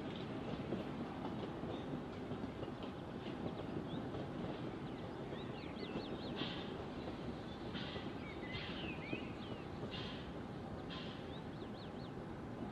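Low, steady rumble of a small steam train on the narrow-gauge line, slowly fading as it goes away. A bird chirps several quick phrases over it in the middle.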